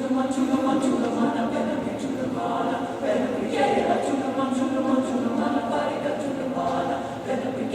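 High school choir singing an Irish-language choral piece a cappella, the full choir coming in loudly at the start and holding a dense, sustained chord texture.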